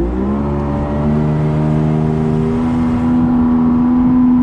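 Boat's outboard motor opened up to high throttle. Its pitch climbs in the first moments, then holds steady and high as it is run hard to clean the engine out.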